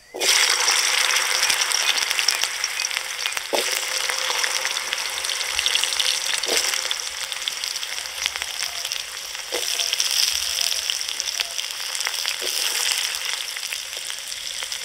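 Cubed taro and potato frying in hot mustard oil in a karahi: a loud sizzle that starts suddenly as the pieces go into the oil and keeps on steadily.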